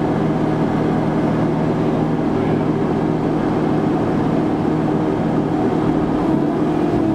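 Vimek 404 T3 small forestry harvester's engine running steadily under hydraulic load as its crane moves, heard from inside the cab, with a slight change in pitch near the end.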